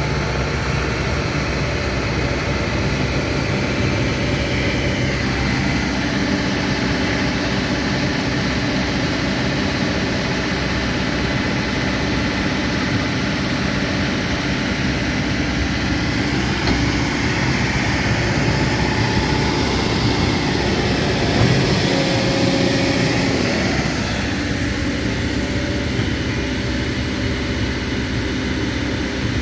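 Heavy engine running steadily, its sound shifting slightly about two-thirds of the way through.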